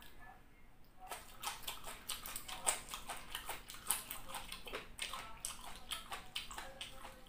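Close-miked eating sounds: a person chewing food from a chicken soup, a quick, irregular run of wet mouth clicks and smacks that starts about a second in.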